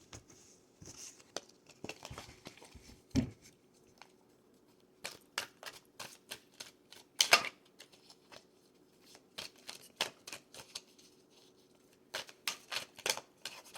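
A deck of tarot cards being handled and shuffled, giving irregular sharp card snaps and flicks, some in quick clusters about halfway through and near the end.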